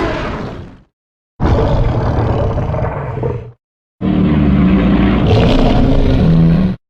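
Godzilla-film monster roar sound effects played one after another: the tail of one roar fades out just under a second in, then two more roars of about two and three seconds follow, each cut off into dead silence. The last roar is deeper, with a steady low pitch running through it.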